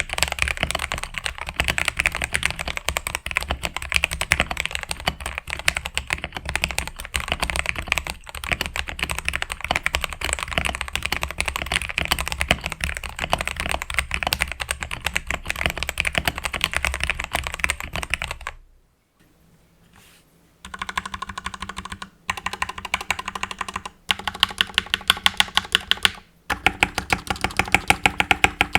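Mechanical keyboard being typed on quickly, a dense run of key clicks. After a brief silence about two-thirds through, a different take of evenly spaced key presses follows, with short pauses between runs.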